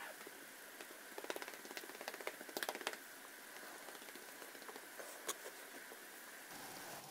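Soft, rapid rustling and clicking of a hand patting and rubbing a tabby cat's fur, mostly in the first few seconds, with one more faint click later, over a steady low hiss.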